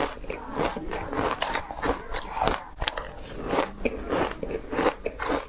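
A person biting and crunching ice close to the microphone: rapid, irregular crisp cracks and crackles as the ice breaks between the teeth.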